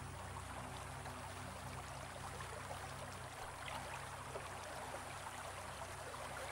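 Shallow stream water trickling and running over stones in a steady, even flow, over a low steady hum.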